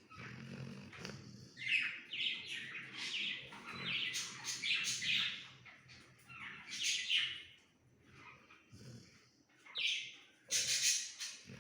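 Labrador dog snoring in its sleep: high-pitched breath sounds come every second or two, irregularly, over a faint low rumble.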